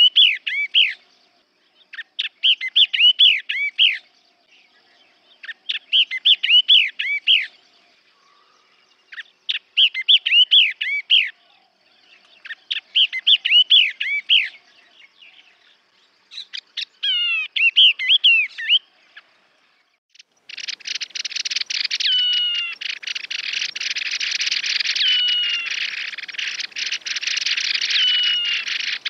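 Yellow-eyed babbler song: six short, bright, warbling phrases, repeated about every three and a half seconds. After a pause at about twenty seconds, a dense steady hiss of rapid clicking takes over, with a short falling whistle about every two and a half seconds.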